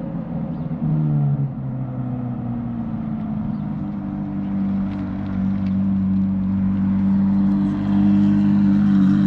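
Ferrari F430's V8 running at low, steady revs as the car drives slowly nearer, with a couple of quick steps in pitch about a second in. It grows gradually louder toward the end.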